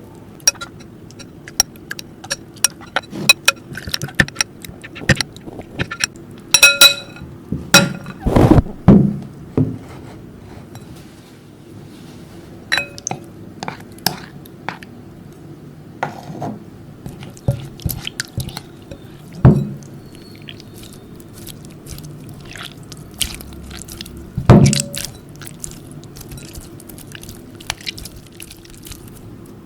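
Utensil clicking, tapping and clinking against a glass or ceramic bowl while slime is mixed, in irregular sharp knocks, a few of which ring briefly.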